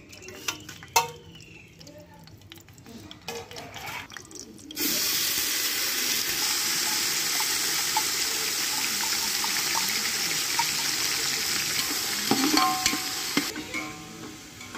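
Light clicks of whole spices and bay leaves dropping into an aluminium pot, then, about a third of the way in, a sudden steady sizzle of hot oil with the spices in the pot.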